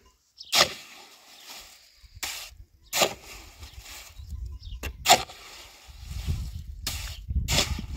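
A series of sharp knocks or strikes, about six at irregular intervals, over a low rumble that sets in about halfway through.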